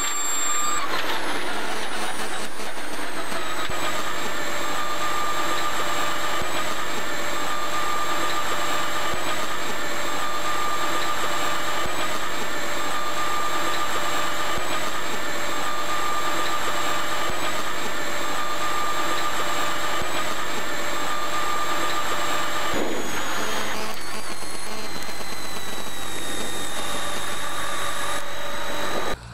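Rally car's engine heard from inside the cabin, running hard and steady for long stretches. Its pitch drops briefly about a second in, and again around twenty-three seconds in, after which it sinks slowly.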